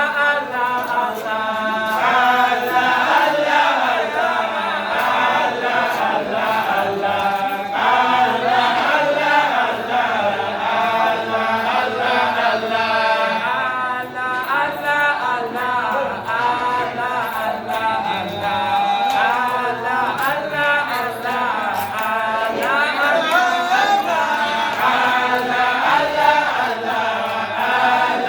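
A group of voices chanting Arabic devotional praise poetry together in a continuous, wavering melody.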